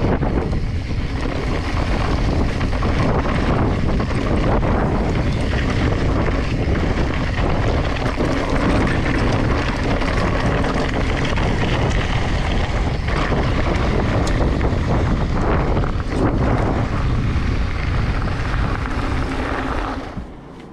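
Wind rushing over an action camera's microphone while a mountain bike rides downhill on a loose, rocky dirt trail, with the tyres crunching over dirt and rocks and the bike rattling. It dies down near the end as the bike rolls onto smooth pavement.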